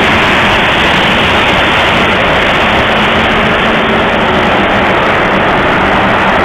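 Corn-drying plant machinery running: a loud, steady rushing noise with an even low hum underneath, unchanging throughout.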